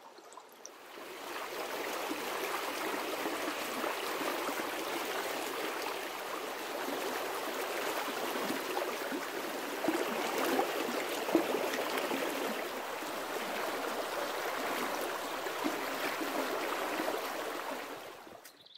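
Shallow creek babbling over a stony bed: a steady rush of running water that fades in about a second in and fades out near the end.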